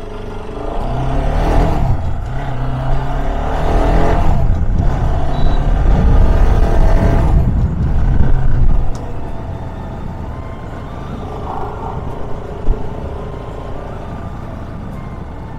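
Bajaj Pulsar RS200's single-cylinder engine accelerating hard through the gears, its pitch stepping with each shift. It eases off about nine seconds in and settles to a steadier, quieter run.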